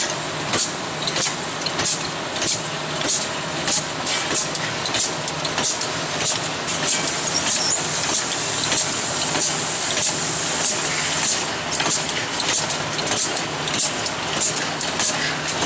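High-speed rotary screw-capping machine running: a steady mechanical hiss and low hum, with a stream of sharp clicks and knocks, about two a second, as plastic bottles and screw caps pass through the capping heads.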